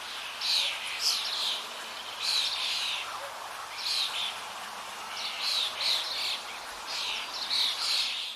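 Songbirds chirping in short clusters of quick notes, a new cluster every second or two, over a steady outdoor background hiss.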